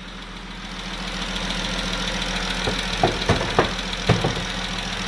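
Jeep 3.6 Pentastar V6 idling with a ticking from the bank one side, which the mechanic takes for broken rocker arms. The running grows louder over the first two seconds, and several sharp clicks come in the second half.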